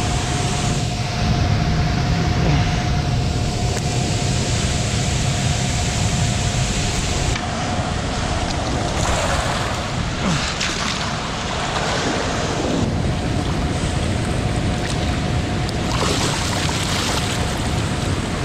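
Fast-flowing river water rushing below a dam, with wind buffeting the microphone. Water splashes in the shallows as a large blue catfish is lowered back in and swims off, loudest about nine to twelve seconds in and again near the end.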